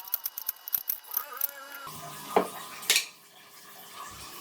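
Kitchen utensils clinking against dishes and cookware: a rapid run of light taps, then two louder clinks about half a second apart.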